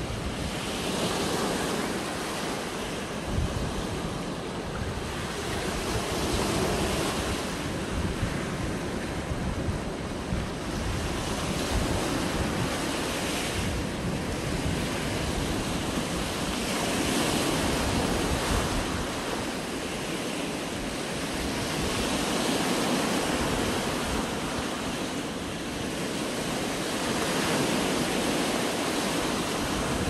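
Small sea waves breaking and washing up a sandy shore around rocks: a steady surf hiss that swells and ebbs every few seconds. Wind rumbles on the microphone underneath.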